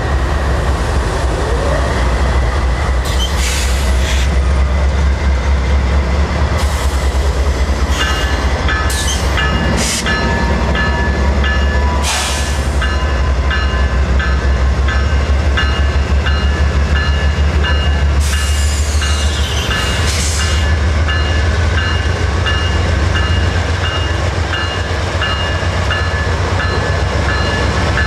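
GE C40-9W diesel-electric locomotives running with a deep, steady engine rumble as the train begins to pull off and the units load up. About eight seconds in, a bell starts ringing steadily and keeps going. A few short hisses of air cut in along the way.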